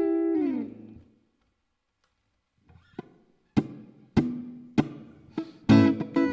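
Electric guitar, a Telecaster with 4-way pickup-switch wiring, being played. A held chord sags in pitch and dies away within the first second. About a second and a half of silence follows, then single plucked notes about every half second, building into full strummed chords near the end.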